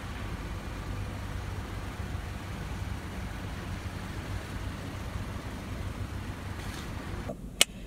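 Steady low rumble and hum of an underground parking garage, with a single sharp click near the end.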